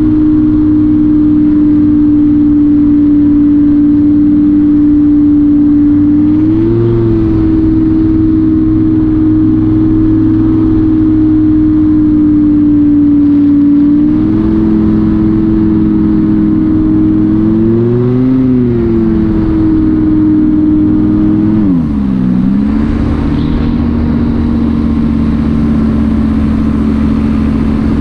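Electric motor and propeller of a Ranger2400 RC plane, heard from the onboard camera, droning at a steady pitch over wind rush. The pitch rises briefly twice, then about 22 seconds in dips and settles lower as the throttle is eased back.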